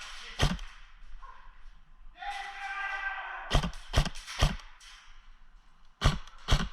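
Sharp knocks in small groups, about half a second apart: one early, three in a row in the middle and two near the end. A short pitched call, like a distant shout, sounds just before the middle group.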